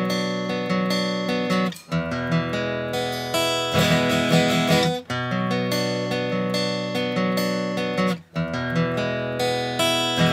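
Background music led by acoustic guitar, strummed chords in phrases that pause briefly about every three seconds.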